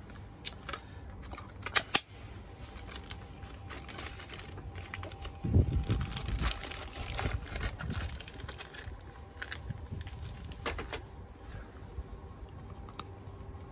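Hands handling a plastic 12 V blade-fuse board and a small plastic bag of screws: irregular plastic clicks and taps and rustling of the bag. A louder stretch of bumping handling noise comes about five and a half seconds in.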